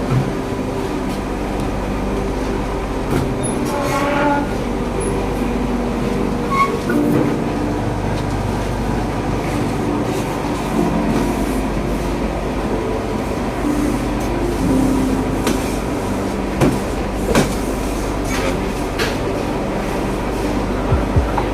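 Steady mechanical rumble with shifting low tones, broken by scattered sharp knocks, more of them near the end.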